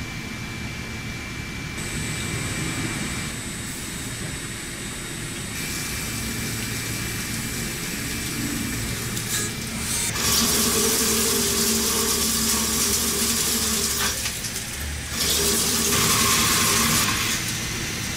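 WFL Millturn CNC machine running as it machines a steel crankshaft: a steady machine hum, broken by a loud rushing hiss with a steady motor tone from about ten seconds in, a short dip, and a second rushing hiss from about fifteen seconds in.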